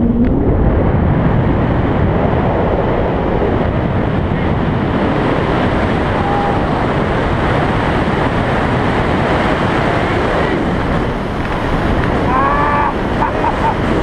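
Steady, loud wind rushing over the camera microphone of a tandem paraglider in flight. A faint voice calls out about twelve seconds in.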